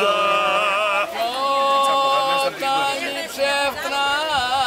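Unaccompanied male singing of a Cretan rizitiko song, with long drawn-out notes that slide from one pitch to the next.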